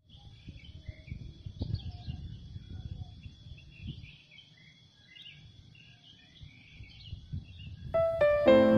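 Outdoor ambience of birds chirping and calling over a steady high whine and a low, uneven rumble. About eight seconds in, sustained keyboard notes begin, opening the song louder than the ambience.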